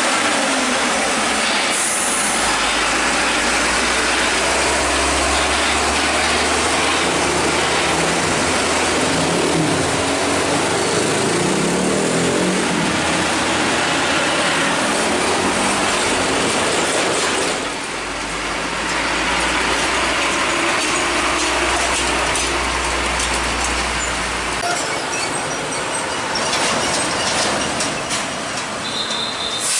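Heavy diesel trucks running and driving over a railway level crossing: a loud, steady traffic noise with a low engine hum under it that drops away near the end.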